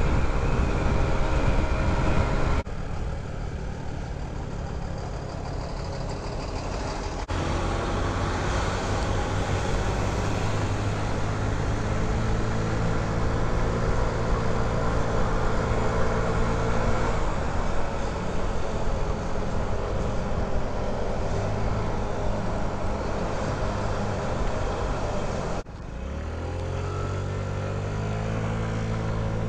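Honda Ruckus scooter's small engine running under way, with wind and road noise. Near the end the engine note drops suddenly, then climbs steadily in pitch as the scooter speeds up again.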